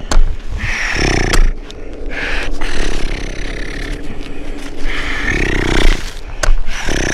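Heavy, wheezing breaths of a climber close to the microphone, one about every two seconds, wheezing that he puts down to strong pollen. A few sharp clicks come between breaths.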